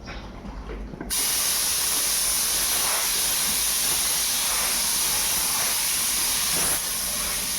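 Compressed air hissing steadily from an air line, starting suddenly and loudly about a second in.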